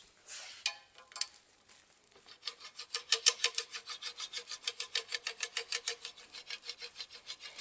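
Roller burnisher worked rapidly back and forth over a collapsed brass trombone slide tube, rolling the dented metal back toward round. It makes a fast, even rubbing rhythm of about six to seven strokes a second, starting about two seconds in after a few handling clicks.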